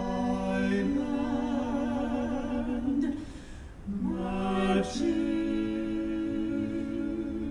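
Soft operatic singing, sustained with slight vibrato, with little or no accompaniment: long held notes that break off briefly about three and a half seconds in before another long held note.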